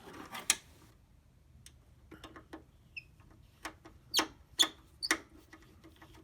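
Irregular small clicks and taps of hand work on the plastic housing and screws of an HP 3330 printer, with a cluster of sharper clicks about four to five seconds in.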